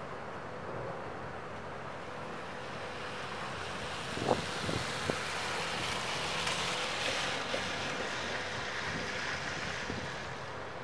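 A car driving past. Its tyre and engine noise swells over a few seconds and then fades. A few sharp clicks come as it approaches, over a faint steady hum.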